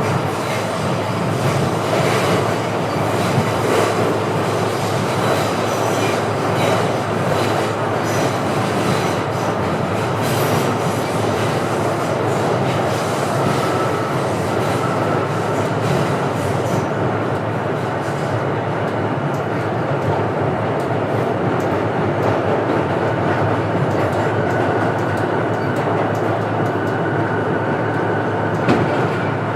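Train running along rails: a steady rumble and wheel noise, with a faint high wheel squeal coming in about halfway through and a sharp click near the end.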